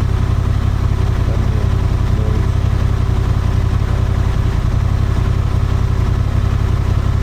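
Honda Transalp 750's parallel-twin engine running at a steady pitch, a loud, even low rumble with no revving.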